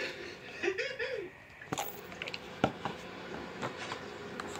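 Fluffy shaving-cream slime kneaded and pulled by hand, giving scattered sticky clicks and pops, with a short hummed voice about a second in.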